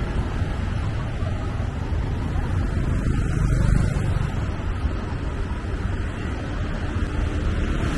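Steady low rumble of a ride through street traffic: engines and tyres of the vehicle and the motorbikes and tuk-tuks around it, with wind buffeting the microphone.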